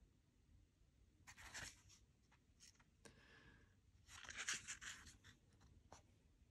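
Faint rustling of paper pages as a book is handled and its pages turned: a short rustle after about a second, then a longer, louder one about four seconds in, with a few light taps between.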